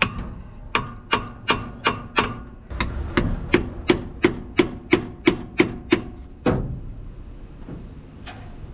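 Hand tool, likely a small hammer, tapping steadily on metal in an old truck's engine bay, about three strikes a second with a short metallic ring in each. A brief pause comes about two and a half seconds in. The tapping stops about six seconds in, and one single strike and a fainter tap follow.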